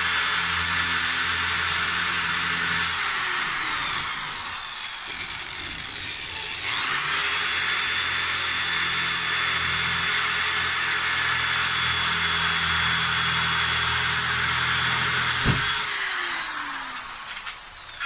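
Electric drill boring holes in a thin metal strip, in two runs: the first slows and stops about three to four seconds in, and a second, longer run starts about seven seconds in and winds down near the end.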